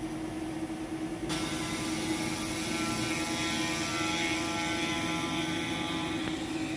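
Home-built CNC router's spindle running with a steady hum; about a second in, its 6 mm flute end mill starts cutting the pine along the outside contour, adding a steady high cutting noise.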